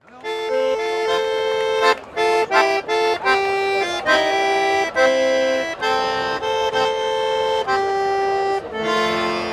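Schwyzerörgeli, a small Swiss diatonic button accordion, playing a solo introduction before a yodel song. It plays mostly held chords, with a few short, clipped chords about two to three and a half seconds in.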